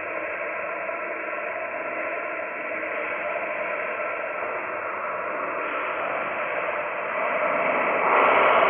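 Dark ambient drone music: a dense, static-like wash of noise with faint held tones running through it, swelling louder near the end.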